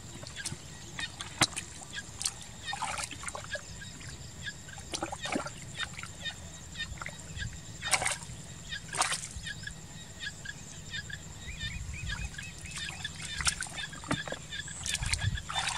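Hands and bare feet sloshing and splashing in shallow muddy water while groping for fish, in scattered irregular splashes; the loudest come about eight and nine seconds in.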